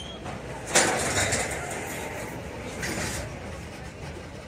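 Freight train of covered hopper cars rolling past, its wheels running on the rail. One sudden loud clank comes about a second in and a smaller one near three seconds.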